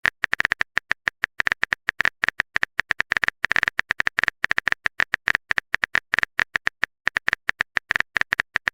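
Keyboard typing sound effect: a rapid, uneven run of short clicks, about eight to ten a second.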